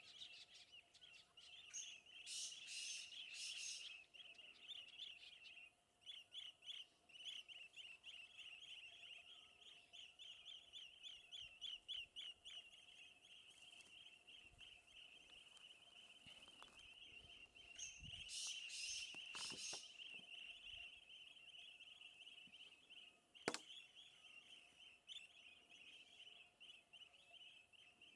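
Faint outdoor nature ambience: a fast, high chirring trill that never stops, with two louder bursts of bird calls, one near the start and one about 18 seconds in, over a faint steady hum. A single sharp click comes about 23 seconds in.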